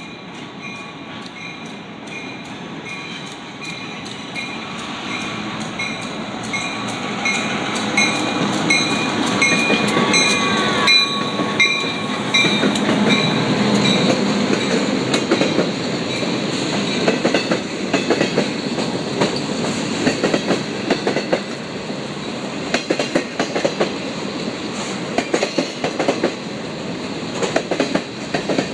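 Diesel freight locomotives approach and pass, their sound building to a peak about eleven seconds in, over a bell ringing about twice a second. Once they are by, the bell stops and boxcars roll past with a clickety-clack of wheels over rail joints.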